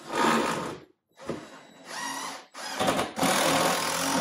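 Power drill driving a screw to fasten a wall cabinet, run in three short bursts with brief pauses between.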